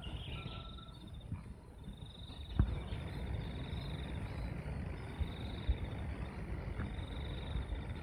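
Insects trilling in repeated bouts of about a second each, a high rapid pulsing, over a low steady rumble, with one short thump about two and a half seconds in.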